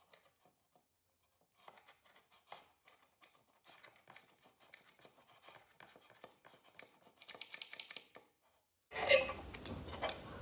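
Table knife sawing through the crust and cheese of a pizza on a plate: a dense run of small crackles and scrapes that gets louder and sharper about seven seconds in. After a short pause, a louder knock comes near the end, with a steady hiss underneath.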